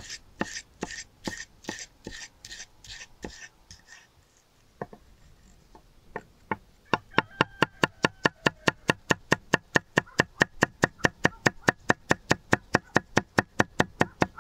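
Kitchen knife cutting an orange bell pepper on a thick wooden chopping board. It starts with crisp slicing strokes about two to three a second. After a short lull it becomes fast, even chopping, about four sharp knocks of the blade on the wood a second.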